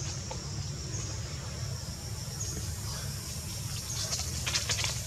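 Forest ambience: a steady high insect drone over a low rumble of wind on the microphone, with a brief cluster of scratchy clicks about four seconds in.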